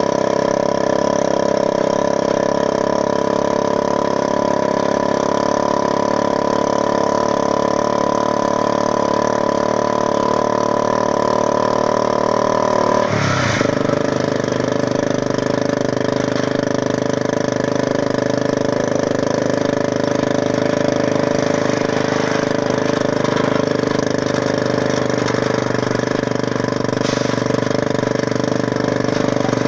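Motorcycle engine of a passenger tricycle (motorcycle with sidecar) running steadily under way, heard from the sidecar. About thirteen seconds in its note drops sharply to a lower pitch and then holds steady again.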